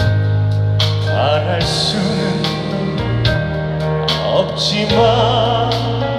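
Male singer performing a slow Korean ballad live over a band accompaniment, with sustained bass notes and regular beat hits under the voice.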